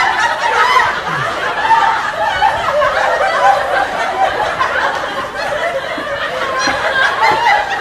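Laugh track: many voices chuckling and laughing at once, continuously.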